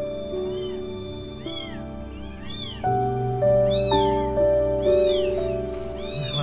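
Very young kittens mewing over and over in short, high, rising-and-falling calls, which get louder and come faster about halfway through. Background music with long held notes plays underneath.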